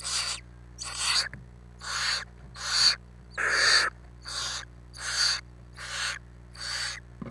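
Barn owl nestlings making their rasping, hissing 'snore' calls, about nine short hisses roughly one a second, the food-begging call of chicks in the nest.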